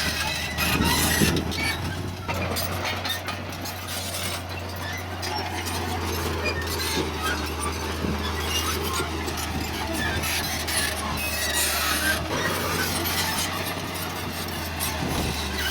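Heavy earthmoving machinery working: a diesel engine runs steadily under scattered metallic clanks and squeals from the machine.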